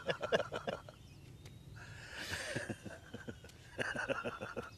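Men's laughter: chuckles in short bursts at the start, again about two seconds in, and near the end.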